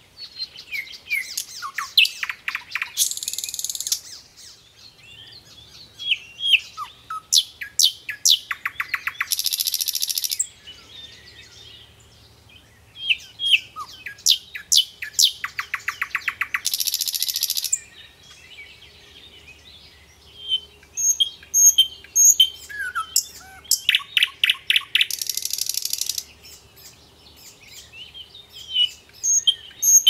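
Small songbirds chirping and singing: short high chirps, rapid trills and harsh buzzy churring phrases, with a similar trill-and-churr sequence coming round four times.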